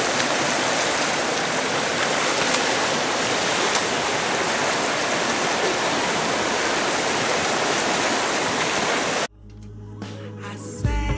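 Fast river current rushing over rocks, a steady wash of water noise that cuts off abruptly about nine seconds in, when music with a steady low bass comes in.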